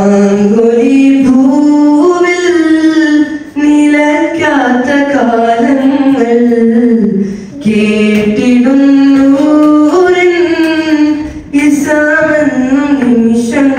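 A young man singing a Malayalam madh (Islamic praise song) unaccompanied into a handheld microphone. Long phrases that slide between held notes, with brief pauses for breath about every four seconds.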